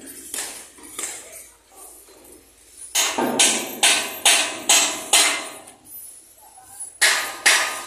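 Hammer blows ringing on steel: a few lighter strikes, then six quick even strikes in a row about halfway through, and two more near the end.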